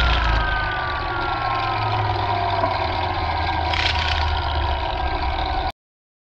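Weed eater (string trimmer) motor and spinning line heard in slowed-down, slow-motion playback: a low steady drone with a whine that slowly falls in pitch. It cuts off suddenly near the end.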